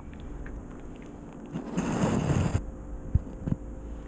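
A small dog scuffling on a tiled floor right beside the microphone: a scraping rustle about a second long that stops abruptly, then two short clicks.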